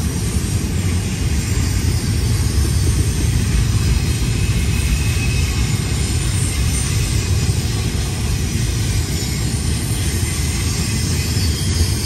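Freight train passing: a steady, loud rumble that holds even throughout.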